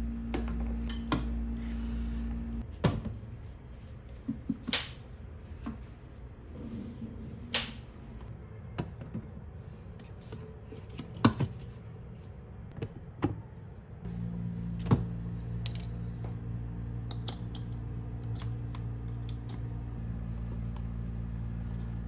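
Soft background music with steady held notes. Over it come scattered sharp clicks and knocks as a small electric rice cooker, its inner pot and its power cord are handled and set down on a stone counter.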